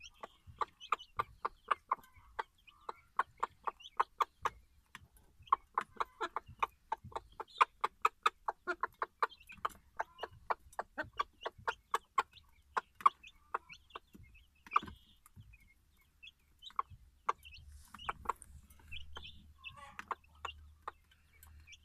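Hen clucking in a long run of short, rapid clucks, several a second, breaking off for a couple of seconds about two thirds of the way through.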